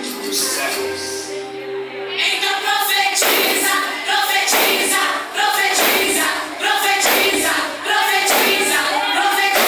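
A group of voices sings a song, backed by instruments. A regular beat of strikes comes in about three seconds in.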